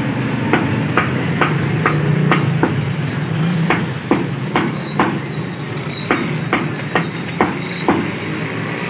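Meat cleaver chopping skinned chicken pieces on a round wooden chopping block, sharp strikes about two a second, over a steady low hum.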